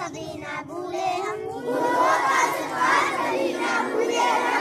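A large group of schoolchildren chanting a prayer together in unison, louder from about two seconds in.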